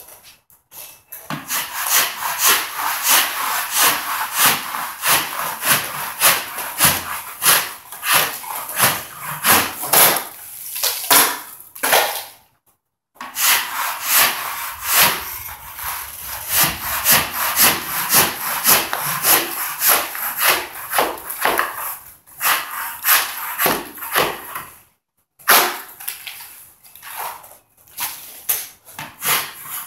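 A wide-bladed drywall scraper rasping across a water-sprayed popcorn ceiling texture, scraping it off in quick repeated strokes at about two a second. It breaks off briefly twice.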